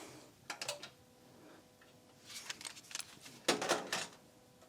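Sony MDS-JE480 MiniDisc deck's disc-loading mechanism clicking and clattering as it runs on a newly fitted loading belt: a couple of soft clicks about half a second in, a cluster of clicks around two and a half seconds, and a louder clatter around three and a half seconds.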